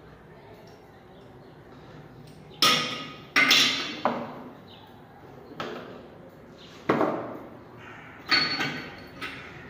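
Metal faucet parts knocking and clinking against a ceramic washbasin as an old sink faucet is taken apart: about seven sharp knocks spread over several seconds, each ringing briefly, the loudest two close together a few seconds in.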